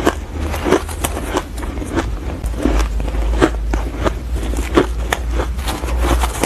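Fluffy frozen ice being chewed close to a clip-on microphone: a quick, irregular run of crisp crunches, over a steady low hum.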